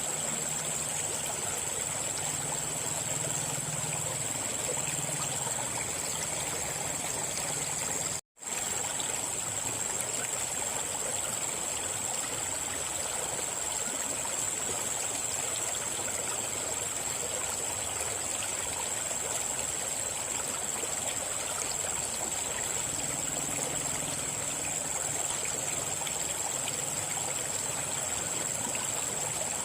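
River water flowing steadily over rocks, an even rushing and trickling, with a steady high-pitched whine over it. The sound cuts out completely for a split second about eight seconds in.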